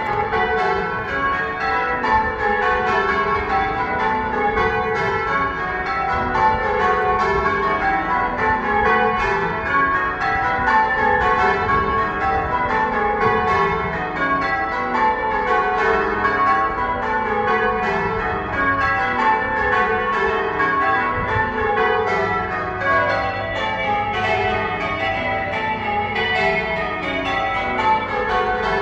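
Church tower bells being change-rung: a continuous, even stream of bell strikes, each row stepping down from the higher to the lower bells in repeating patterns.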